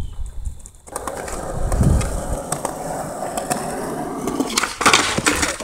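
Skateboard wheels rolling on smooth concrete with scattered clicks, then a loud clatter of the board on the concrete about five seconds in.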